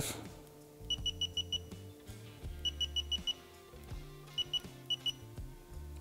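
Digital torque wrench beeping as its buttons are pressed to set it to 25 foot-pounds: two quick runs of five short high beeps, then two pairs of beeps near the end. Soft background music plays underneath.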